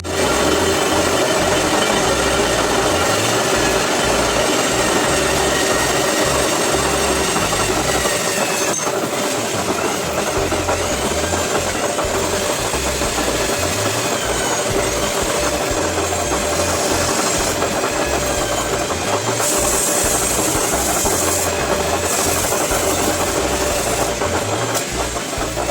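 Lathe turning a Renault Kwid brake disc, the cutting tool machining the rotor face with a steady mechanical noise and held ringing tones.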